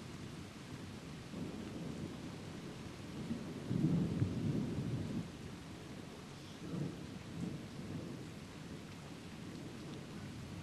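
Thunder rumbling over steady rain. The rumble swells about a second and a half in, is loudest around four to five seconds in, and rolls twice more, weaker, near seven seconds.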